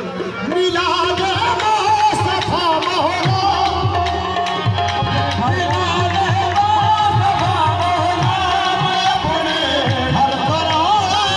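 Live devotional folk singing: a man's voice holding long, wavering, ornamented lines, with a hand drum beating a steady rhythm that comes in strongly about three seconds in.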